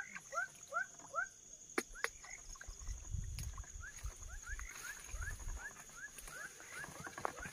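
An animal repeating short rising chirps, about three a second, over a steady high insect drone. Leaves and stems brush and snap as someone pushes through dense ferns, with dull thumps about three and five seconds in.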